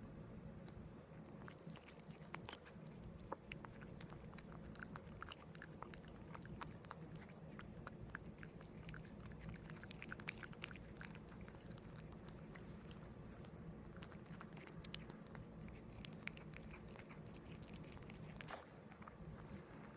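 A cat chewing its food: faint, irregular small crunches and clicks over a low steady hum.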